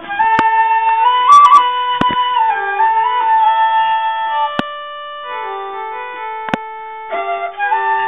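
Background music: a slow melody moving in small steps over held lower notes, with a few sharp clicks.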